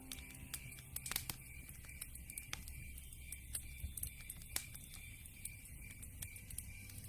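Wood fire crackling in a fireplace: irregular sharp pops and snaps from burning logs, with louder pops about a second in and at about four and a half seconds.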